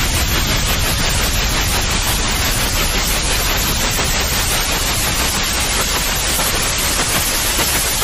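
Steady white noise played as a baby sleep aid: an even hiss at a constant level with no changes or breaks.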